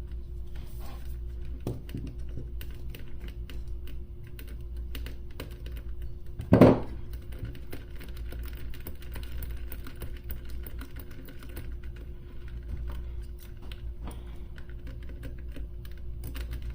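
Many small, irregular clicks and taps from close-up handwork on a radio potentiometer's wiring, over a steady low hum. One louder knock comes about six and a half seconds in.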